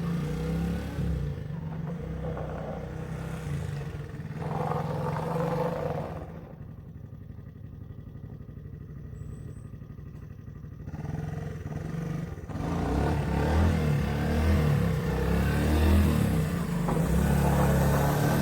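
1983 Honda ATC 185S three-wheeler's single-cylinder four-stroke engine running as it is ridden. It fades as the trike moves away through the middle and grows louder again as it comes back near the end.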